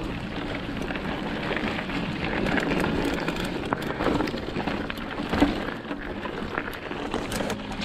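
Mountain bike rolling down a rough dirt trail: tyres crunching over loose dirt and stones, with scattered clicks and knocks from the bike bouncing, the loudest knock about five and a half seconds in.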